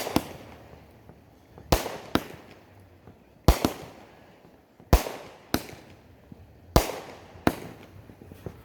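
Fireworks going off: sharp bangs, mostly in pairs, about every one and a half seconds. Each bang fades out with a trailing echo.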